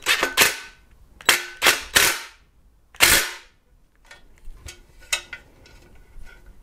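DeWalt cordless drill driving screws home in three short bursts, each under half a second, within the first three and a half seconds, tightening the screws that hold the extension wings to a steel TV-bracket plate. Smaller clicks and handling knocks follow.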